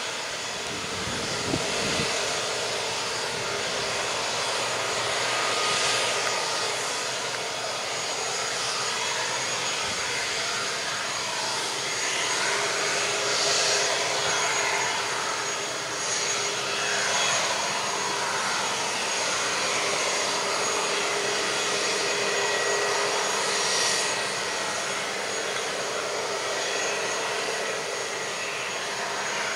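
Airbus A320neo's CFM LEAP-1A turbofan engines at taxi power: a steady jet whine with several held tones over a rushing hiss, swelling a little a few times.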